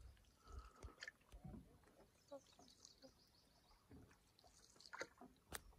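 Near silence: a canoe being paddled, with faint paddle dips, drips and a few light knocks against the hull.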